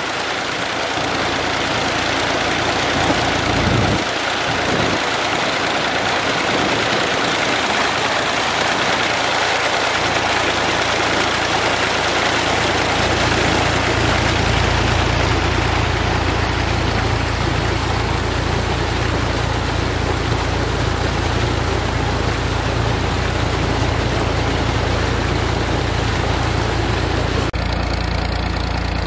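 Water gushing from a tubewell delivery pipe and splashing into a concrete tank, a steady rushing with a deeper rumble filling in about halfway through. Under it the tractor's diesel engine runs steadily, driving two tubewell pumps through a shaft and pulleys.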